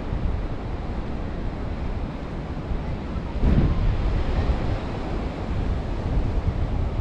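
Wind buffeting the microphone over the wash of ocean surf, with a brief sharp knock about three and a half seconds in.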